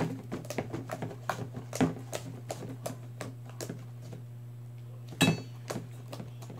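Sticky slime being kneaded and squished by hand in a stainless steel mixing bowl: irregular small clicks and pops, with a louder knock against the metal bowl about five seconds in, over a steady low hum.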